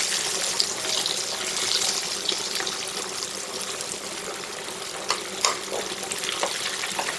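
Breaded pompano chunks deep-frying in hot oil, at about 350°F, in a cast-iron pot: a dense, steady sizzle of bubbling oil that eases off a little, with a few sharp clicks.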